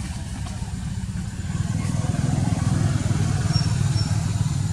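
A motor vehicle's engine running nearby: a low, rapidly pulsing rumble that grows louder about a second and a half in.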